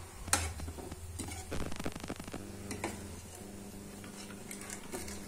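Metal slotted spoon clicking and scraping against a metal pan as jalebis are turned and lifted, in scattered knocks with a quick run of them near the middle. A steady low hum runs underneath.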